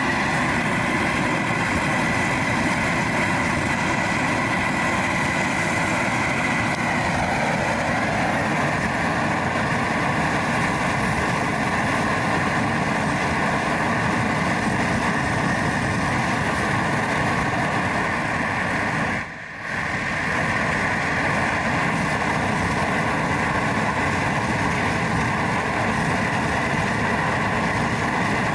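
Homemade pipe burner for a metal-melting furnace, firing in the open with a loud, steady rushing noise of gas and flame, with one brief dip about two-thirds of the way through. The burner is running well.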